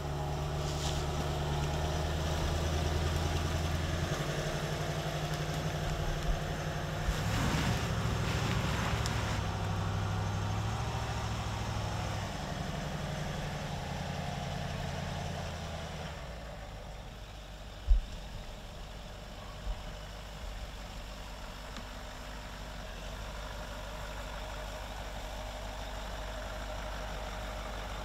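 Range Rover L322's TDV8 diesel engine running at low revs as the car crawls off-road, its note stepping up and down a few times. About halfway through it becomes quieter, with a single sharp knock a couple of seconds later.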